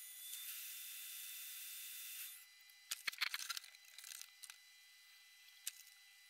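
Faint steady hiss with a thin high whine for about two seconds. Then a quick cluster of small clicks and scrapes, with one more click near the end, as tools work on the circuit board to take off the hex inverter chip.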